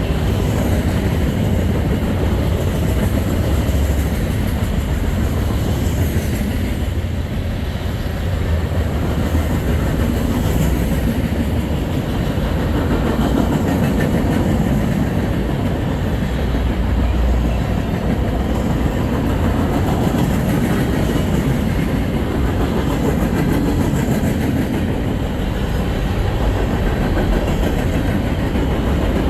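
Freight train cars rolling past, a steady loud rumble of steel wheels on the rails with a rattling clatter.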